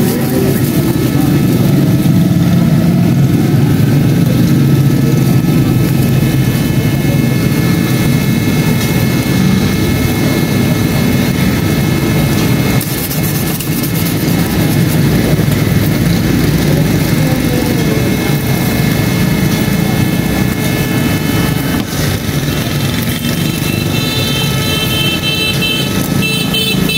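Loud steady low rumble of running engines. A high tone with several pitches comes in near the end.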